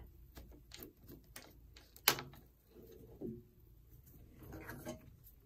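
Faint metal clicks and knocks from hands working at a bench lathe's chuck and a steel bar, the sharpest about two seconds in.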